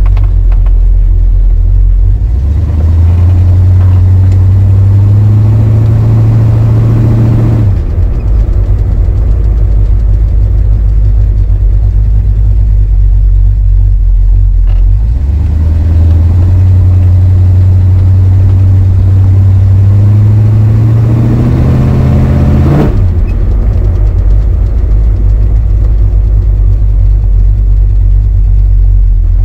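Classic muscle car's engine heard from inside the cabin while driving. It pulls hard twice, its pitch climbing steadily for several seconds and then dropping off abruptly, about a quarter of the way in and again about three quarters of the way in, with a steady rumble at cruise in between.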